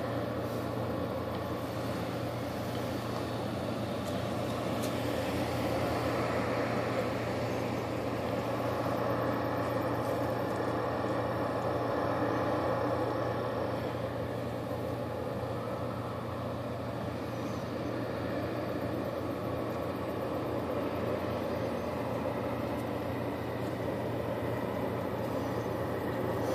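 Steady mechanical background rumble with a constant low hum, unchanging throughout.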